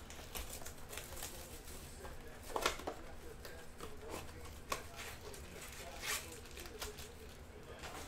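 Cardboard trading-card blaster box being opened by hand and its foil card packs pulled out and handled: a scatter of short paper tears, rustles and foil crinkles.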